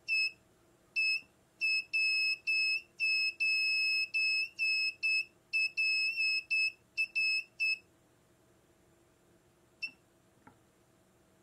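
Inductive short-circuit locator beeping: a high tone that sounds in irregular pulses of different lengths as its probe sweeps back and forth across the shorted trace on a circuit board, each beep marking the probe over the line carrying the short-circuit current. The beeping stops about eight seconds in, followed by a faint click.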